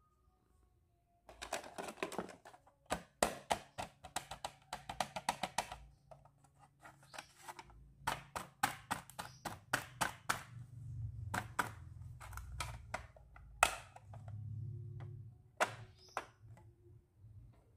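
Hard plastic toy accessories clattering and clicking against each other as hands rummage through a box of them and handle a plastic toy compact. Sharp clicks and knocks start about a second in and come thick and irregular, with one louder knock past the middle and some low muffled rubbing.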